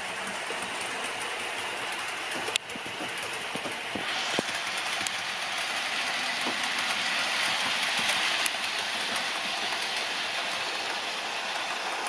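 Heljan OO gauge Class 33 model diesel locomotive running along the layout track with its train: a steady mechanical whirr with a couple of sharp clicks, growing louder from about four seconds in.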